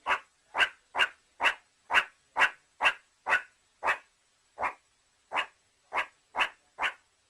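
An animal giving a steady series of short, sharp, bark-like calls, about two a second, with slightly longer gaps around the middle.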